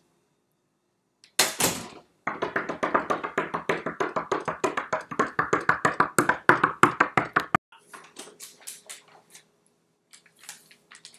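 An interior door shuts with a thud, then is knocked or banged on rapidly, about seven or eight strokes a second for around five seconds. Fainter, scattered taps follow near the end.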